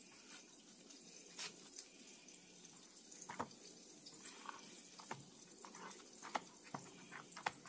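Faint, scattered soft taps and wet drips from hands breading grit squares, patting them in flour on a paper plate and dipping them into egg wash in a plastic container.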